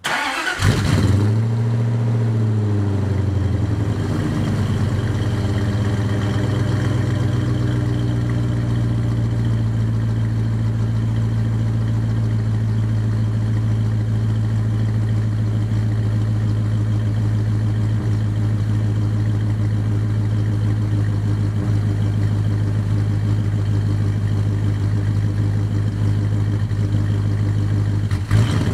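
1967 Plymouth Barracuda's 5.2 L Magnum V8 starting up through a 2.5-inch dual exhaust with turbo mufflers. It fires right away, revs briefly up and back down over the first few seconds, then settles into a steady idle.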